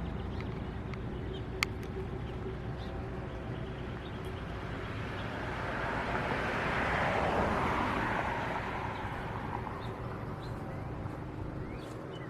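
Road traffic: a passing vehicle's tyre and road noise swells to a peak about seven seconds in and then fades, over a steady low hum. A single sharp click sounds early on.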